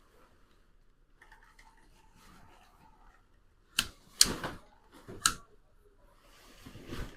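Three sharp clicks or knocks, two close together just before the middle and a third about a second later, over a quiet room.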